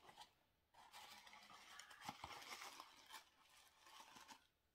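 Faint crinkling and tearing of packaging as a small cardboard box is opened and a soap rose is unwrapped from it, stopping shortly before the end.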